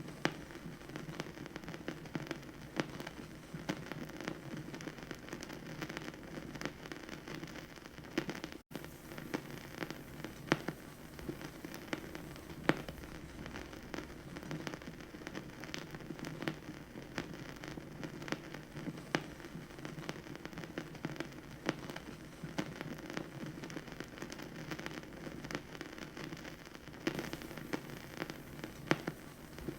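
Vinyl record surface noise: a steady hiss and low rumble from the stylus in the groove, dotted with irregular clicks and pops. The sound cuts out for an instant about nine seconds in.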